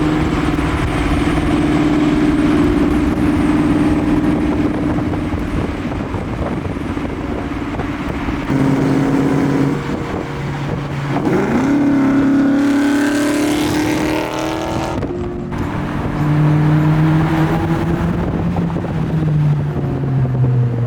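A car engine running steadily, its pitch holding and then shifting in steps, with a rev rising sharply about halfway through.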